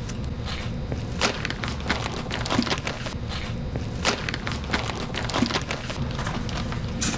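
Footsteps on a hard floor, one step about every two-thirds of a second, over a steady low hum.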